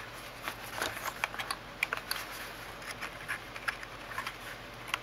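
Craft knife cutting through two clipped layers of Bristol board, making a string of small irregular ticks and scratches as the blade works along the panel edge.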